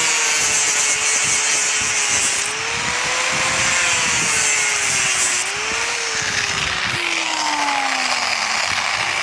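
Angle grinder cutting a plastic rub rail channel strip into small pieces, its motor whine wavering and dipping as the disc bites, with a harsh cutting hiss over it. The motor's pitch sinks steadily near the end.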